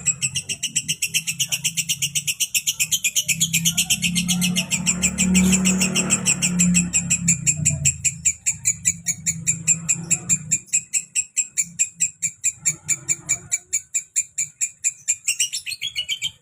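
Female lovebird giving one long unbroken chattering song: rapid, evenly repeated high chirps, several a second, without a pause. A low hum sits underneath for the first ten seconds or so.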